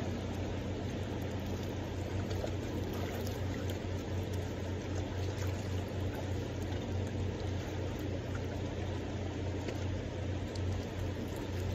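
Steady rushing of a fast-flowing river current, with a low rumble underneath.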